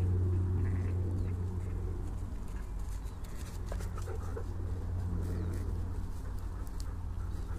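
Outdoor ambience beside a grazing flock of sheep: a steady low rumble that eases after about two seconds, with scattered short animal calls and small clicks over it.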